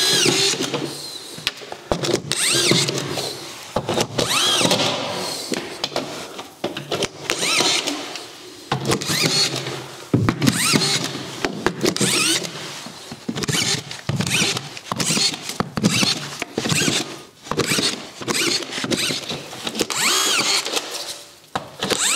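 Cordless autofeed drywall screw gun driving collated screws through drywall into OSB. The motor whines up and down in short runs, one per screw, about a dozen in all, with knocks in between.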